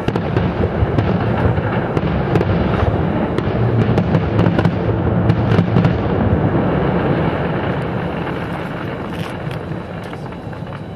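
Fireworks barrage: a dense, continuous run of bangs from bursting shells, with sharp crackling through the middle, dying away over the last few seconds.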